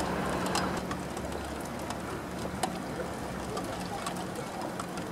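Outdoor ambience of rain falling, with scattered drops ticking close by over a steady noise and a low, steady hum.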